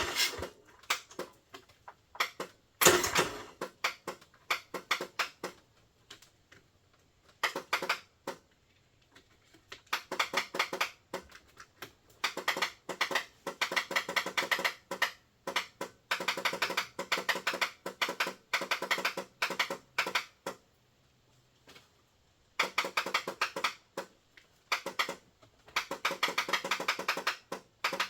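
Starter relay (solenoid) on a Kohler Command 16 hp mower engine chattering in rapid bursts of clicks, several tries of one to three seconds each, with a louder clatter about three seconds in. The engine does not crank. The owner puts this down to a stuck relay and guesses a bad connection may be part of it.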